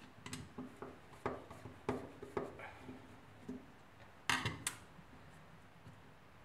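Small metal parts of a scooter's starter clutch clicking and clinking as it is taken apart by hand: a scattering of light clicks, with two sharper ones about four seconds in.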